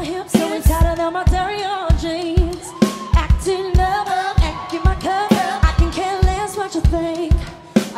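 Pop band playing live, with women's lead vocals over a steady kick-drum beat of about two thumps a second.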